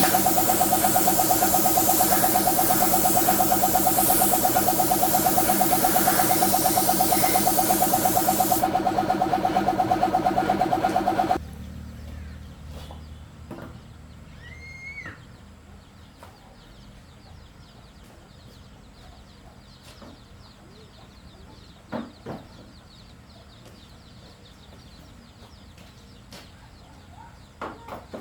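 A motor-driven machine running steadily with a fast pulsing beat, under a spraying hiss of air that stops about nine seconds in. The machine then shuts off abruptly about eleven seconds in, leaving a quiet background with a short bird chirp and a few light knocks.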